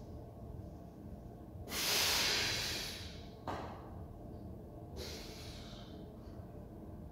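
A man breathing hard while flexing in bodybuilding poses: one long forceful breath about two seconds in, and a shorter, weaker one about five seconds in.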